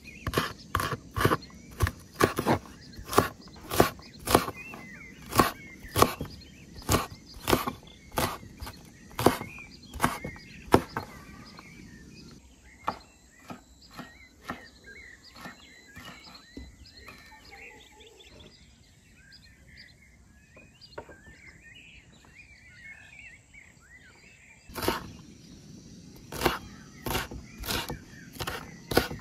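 A knife chopping green beans on a wooden cutting board, a steady run of sharp knocks about two a second that thins to fainter, sparser cuts midway and picks up again near the end. Birds chirp in the background, clearest when the chopping slows.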